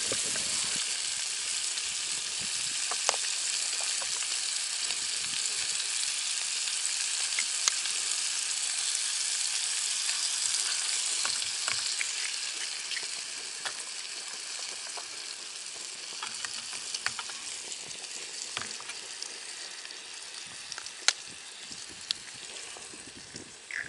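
Pieces of salo (cured fat) sizzling in a small pan on a portable gas canister stove, a steady hiss with scattered light clicks as more pieces are dropped in. The sizzle fades gradually over the second half.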